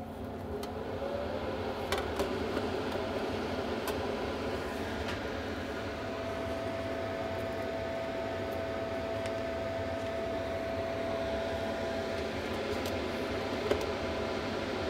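Small cooling fan running steadily. A thin steady whine comes in for a few seconds in the middle, and a few light clicks and knocks come from handling a sheet-metal amplifier lid.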